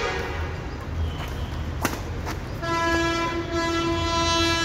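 A train horn sounds one long, steady blast starting about halfway through. Just before it come two sharp racket hits on a shuttlecock, about half a second apart.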